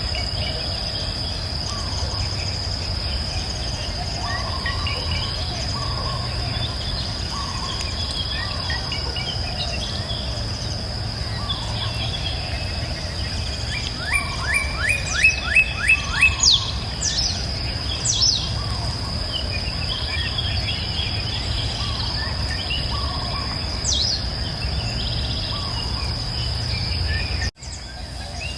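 Forest ambience: a steady high insect drone with birds chirping throughout, and one bird's loud run of about seven quick notes about halfway through. A low rumble underneath; the sound cuts out briefly about a second before the end.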